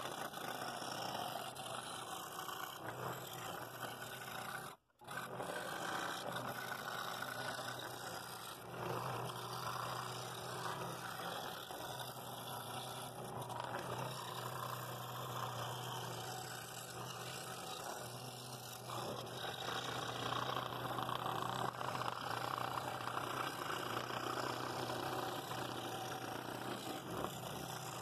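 Scroll saw running steadily, its reciprocating blade cutting fretwork in walnut. The sound drops out for a split second about five seconds in.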